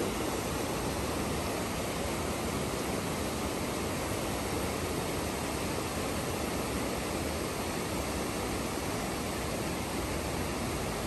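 Shallow river rushing over rocks and boulders: a steady, even sound of running water.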